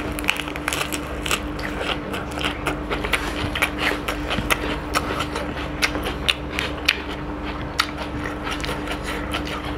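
Close-miked eating: lettuce and rice with chicken curry chewed and crunched, giving irregular crisp clicks and lip smacks, over a steady low hum.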